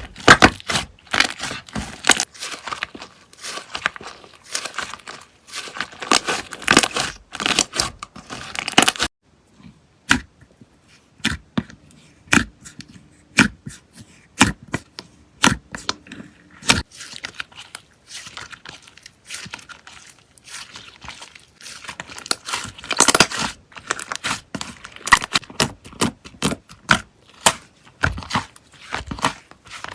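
Slime being handled, pressed and stretched, giving dense, irregular crackling pops and sticky clicks, with a short pause about nine seconds in.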